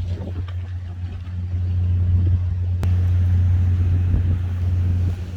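Steady low hum of a running engine, most likely an idling vehicle, with a single light click about three seconds in.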